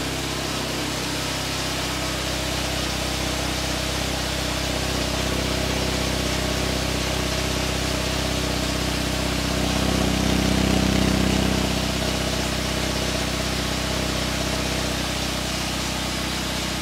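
Exhaust of a Nissan Micra turbo idling steadily at the tailpipe after a cold start. It swells briefly louder about ten seconds in, then settles back.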